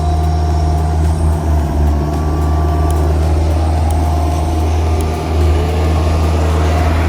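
Heavy machine's engine running at a steady, unchanging pitch, a deep drone.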